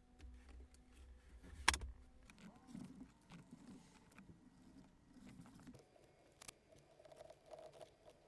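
Faint handling noises: scattered clicks and light rustling, with one sharp click a little under two seconds in.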